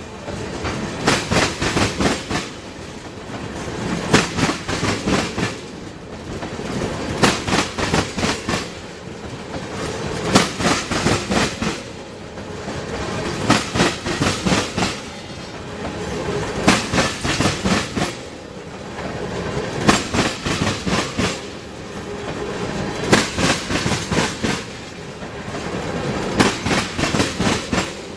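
Freight train tank cars rolling through a level crossing over a steady rumble. Their wheels click-clack over the track in bunches that come about every three seconds, one bunch per passing car.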